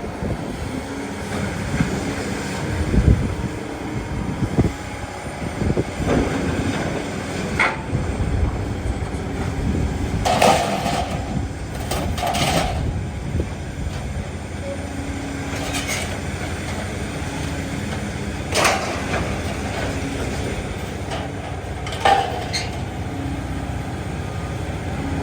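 Scrap metal being unloaded: a few clanks of metal on metal over a steadily running engine.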